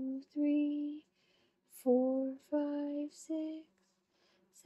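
A woman singing a handful of long, held notes in a soft voice, with short pauses between them.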